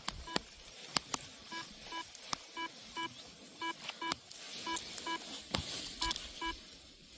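Short electronic beeps, all on the same pitch, sounding in an uneven run of roughly two or three a second, mixed with a few sharp clicks from the paragliding harness and risers being handled.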